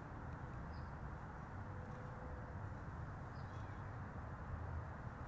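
Outdoor background noise: a steady low rumble with a couple of faint, short bird chirps.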